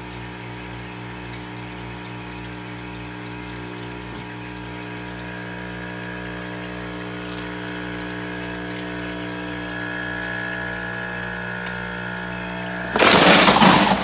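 Commercial ice machine in its freeze cycle: the water pump circulates water over the evaporator plate and the compressor runs with a steady hum and a low regular pulse. Near the end there is a loud rush of noise lasting about a second.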